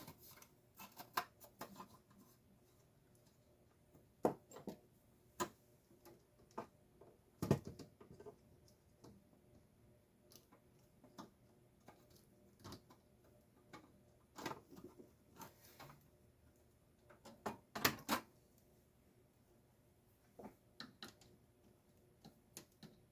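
Scattered light clicks and knocks of parts and tools being handled while a motor-and-gearbox unit is taken apart, the strongest knocks about 4, 7 and 18 seconds in.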